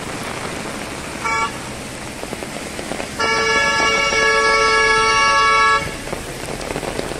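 A vehicle horn sounding twice on a wet road: a short toot about a second in, then a long blast of about two and a half seconds. Heavy rain hisses on the road throughout.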